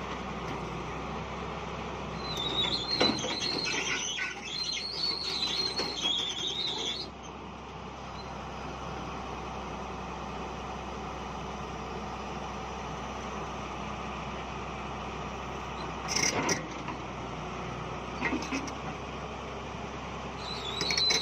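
Excavator's diesel engine running steadily, with a spell of high-pitched metallic squealing about two to seven seconds in and again near the end, and a couple of short knocks about sixteen and eighteen seconds in.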